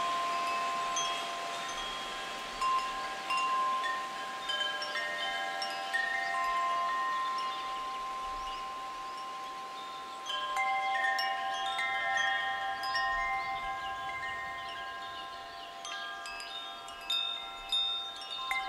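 Wind chimes ringing: metal chimes struck at irregular moments, each note ringing on so that several pitches overlap.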